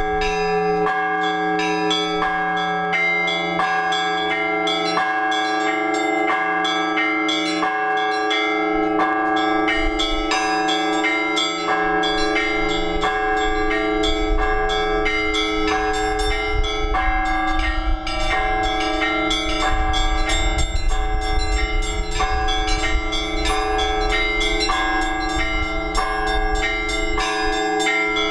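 Orthodox church bells ringing together in a dense peal: smaller bells are struck rapidly, several times a second, over the sustained hum of the larger bells.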